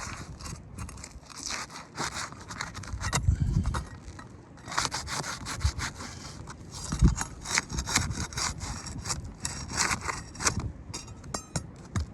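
Asphalt roof shingles being pried and scraped loose with a hand tool: repeated rough scraping strokes with a few sharp knocks.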